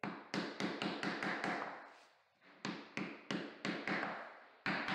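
Hand mallet tapping a luxury vinyl floor plank into place. A quick run of sharp taps, a pause of about a second, then another run.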